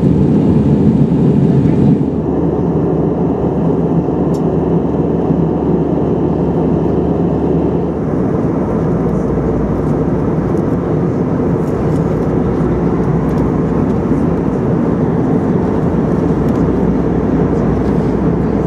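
Steady in-flight cabin rumble of an Airbus A319-131, the noise of its IAE V2500 engines and the airflow over the fuselage, heard from a window seat. It steps down slightly about two seconds in, with a few faint ticks over the top later on.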